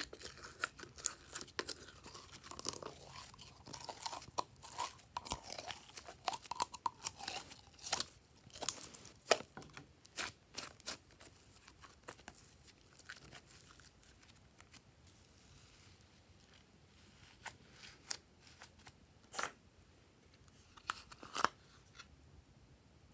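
Glossy slime handled close up: pulled from a plastic jar, then stretched and folded by hand, giving many small sticky crackling pops and squelches. The pops are dense at first and thin out in the second half, with a few louder clicks near the end.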